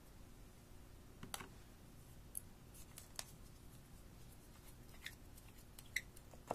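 Faint, scattered clicks and light scrapes from a glass nail polish bottle being handled and its screw-on brush cap being twisted off.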